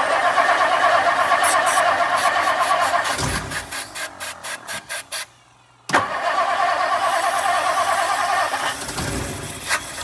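A 1959 Lincoln's 430 V8 being cranked by its starter in two tries of about three seconds each, the engine coughing briefly without catching. It will not start because the carburetor float bowl is empty of fuel.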